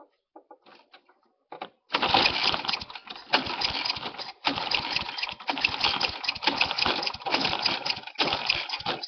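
1986 Toro 21-inch rear-bagger lawn mower's engine catching about two seconds in and then running loud, its level dipping briefly about once a second.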